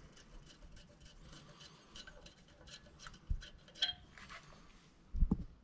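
Faint rubbing and small clicks of a brake hose bracket and its bolt being fitted and threaded in by hand, with a light metallic clink about four seconds in and a couple of dull knocks near the end.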